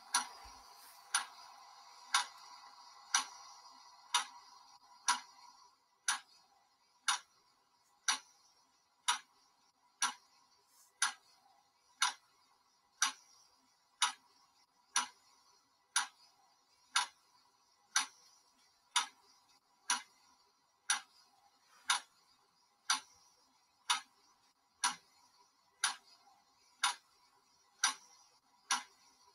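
Countdown timer's clock-tick sound, ticking once a second. A faint steady sound lies under the first few seconds and then fades away.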